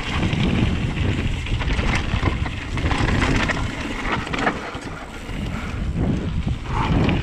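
Wind rushing over the microphone, with tyre rumble and a scatter of knocks and rattles from a Vitus Sommet mountain bike in motion; it eases briefly past the middle.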